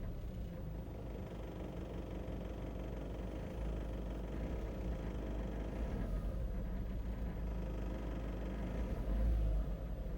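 2001 Volkswagen New Beetle's 1.8-litre turbocharged four-cylinder engine running with a knock, the fault the owner is recording. It grows briefly louder near the end.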